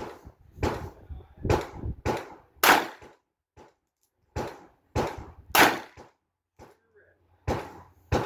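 A string of gunshots from a .22 Magnum revolver, fired in quick succession about half a second apart, in three short groups with brief pauses between them.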